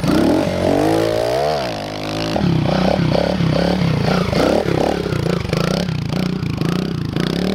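Small pit bike engine revving during wheelies. It revs up and back down in the first two seconds, then changes abruptly and runs on with its pitch rising and falling about twice a second as the throttle is worked.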